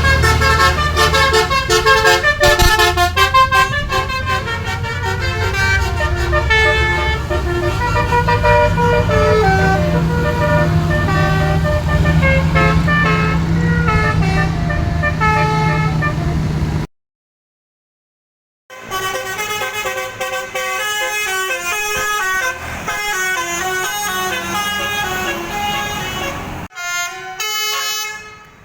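Indonesian bus 'basuri' telolet horn, a set of trumpet horns playing quick stepping melodies, with a steady low engine hum underneath. About 17 seconds in, the sound cuts off for about two seconds, then another horn tune plays.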